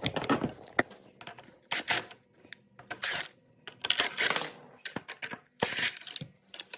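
Screws being backed out of an ECHO PB-200 leaf blower's housing with a screwdriver: short scraping bursts about a second apart, mixed with small clicks.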